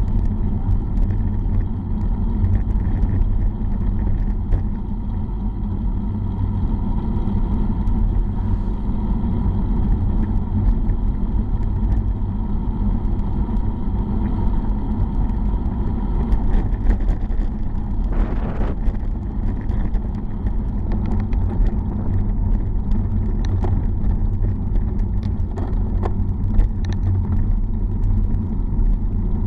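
Wind rushing over the microphone of a bike-mounted camera on a fast downhill ride, with tyre and road rumble underneath. A few scattered clicks and rattles come through in the second half.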